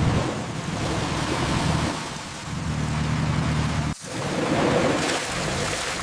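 Heavy rain with low thunder. About four seconds in the sound drops out abruptly for a moment, then the rain hiss comes back brighter.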